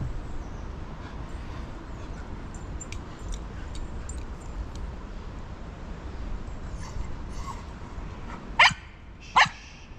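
A dog barking twice near the end, two short sharp barks about a second apart, over a steady low rumble.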